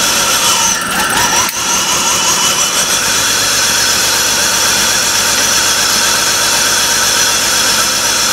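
2004 BMW 325xi's M54 inline-six idling steadily with a high-pitched whine over it. A short squeak and one sharp click come about a second and a half in, as the vacuum gauge hose is pulled off a vacuum port that was showing almost no vacuum.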